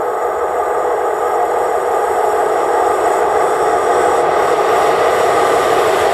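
Freight train of car-transporter wagons hauled by a DB class 140 electric locomotive approaching, its rolling noise on the rails growing steadily louder.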